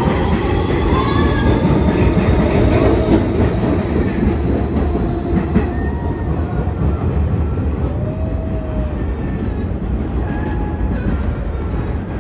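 New York City subway train running on elevated track: a steady rumble of steel wheels on rail, with thin squealing tones that slide up and down in pitch. It is loudest in the first few seconds and eases a little later on.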